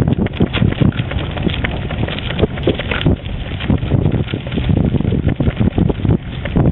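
Recumbent bicycle rolling fast downhill on a gravel road: a steady rumble and crunch of tyres on loose gravel, studded with irregular knocks and rattles from the rough surface, with wind buffeting the microphone.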